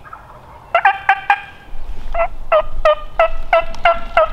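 Wild turkey yelping: four quick notes about a second in, then a steady run of loud yelps at about three a second from around two seconds in.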